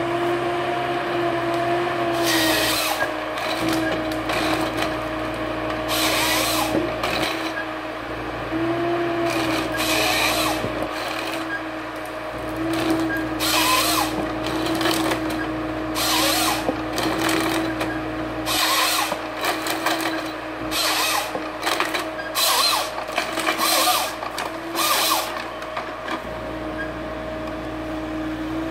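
Neuson 9002HV forestry harvester running with a steady engine and hydraulic drone while its harvester head processes spruce trunks, giving many short, harsh bursts of sawing and branch-stripping, more frequent in the second half.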